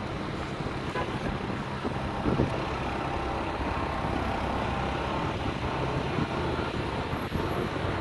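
Steady road-traffic noise on a wide city avenue: cars and trucks rumbling past, with a brief louder thump about two and a half seconds in.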